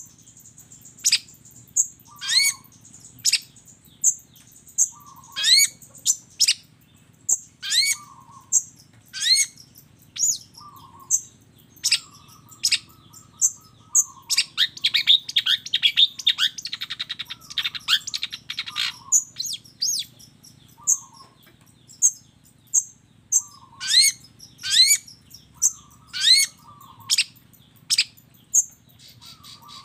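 Long-tailed shrike (cendet) singing: sharp, rising calls repeated about once a second, with a fast trill in the middle. A faint steady low hum lies beneath.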